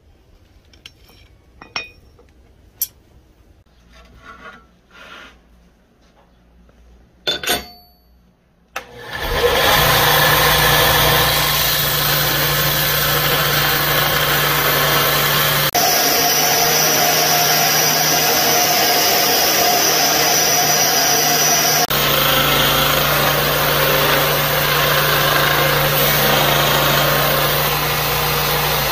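A few light metal clinks and taps of a steel knife blank on the anvil. Then, about nine seconds in, an abrasive belt grinder runs loud and steady, grinding the blank's edge profile, its tone shifting abruptly a couple of times.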